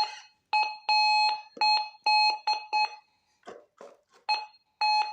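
Metal detector sounding a steady, constant-pitch tone in a string of irregular beeps, some short and some held, as it passes over a buried metal target, here a coin. A few brief scraping sounds come between the beeps.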